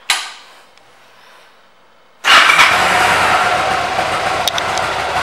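A short sharp click just as it begins, then about two seconds in the Yamaha V Star 1100's air-cooled V-twin engine comes in abruptly, running loud and steady at idle.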